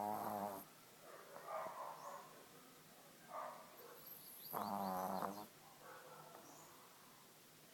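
Pug snoring: a loud, fluttering snore right at the start and another from about four and a half to five and a half seconds in, with softer wheezy breaths between.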